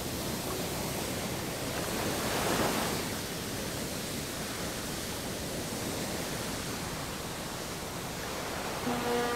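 Steady rushing sea-and-wind noise, swelling briefly about two and a half seconds in. A horn starts sounding right at the end.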